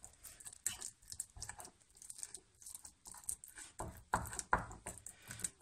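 A fork mashing soft baked pumpkin on a plate: faint, irregular squishing and scraping with small clicks of the tines on the plate, a few louder strokes about four seconds in.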